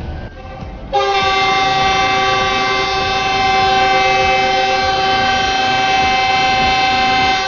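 Air horn of a GEU-20 (GE U20C) diesel locomotive sounding its departure signal: one long, steady, loud blast that starts about a second in and holds without a break.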